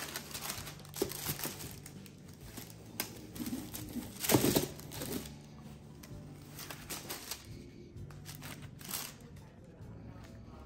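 Tissue paper and a cloth dust bag rustling and crinkling as they are handled and pulled open, in irregular bursts, the loudest about four seconds in and fewer toward the end.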